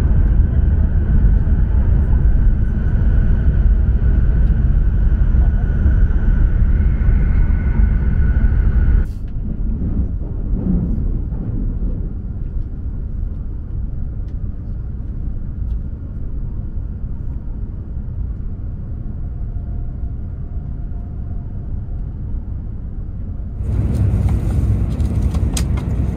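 Cabin noise of a Joetsu Shinkansen Toki bullet train running at speed: a steady deep rumble with a faint high whine, loudest in the first part while the train runs through a tunnel. It drops abruptly to a quieter rumble about nine seconds in, then jumps back up near the end.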